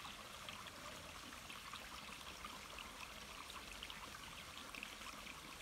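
Shallow mountain stream running over rocks, faint and steady.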